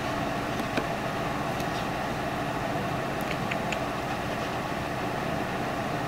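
Steady indoor room noise, a low even hum and hiss, with a few faint light ticks scattered through it.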